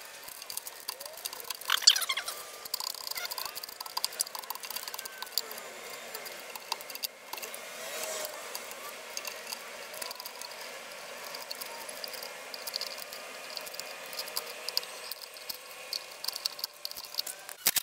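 Knife blade scraping and prying dry bark off a wood burl: an irregular run of small scratches, crackles and clicks, with a sharper crack about two seconds in.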